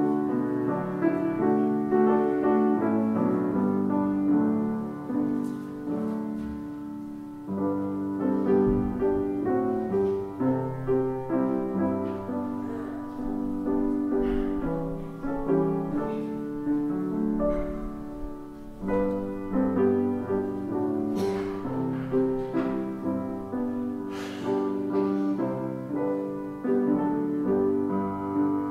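Solo piano playing slow chords with held notes, with a few faint clicks over the music.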